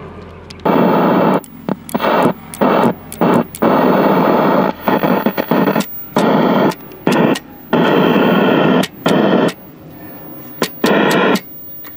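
Loud hiss of static from a tube TV set's speaker, cutting abruptly on and off about a dozen times in uneven bursts as the set's sound muting switches in and out. The set mutes its sound on some channels.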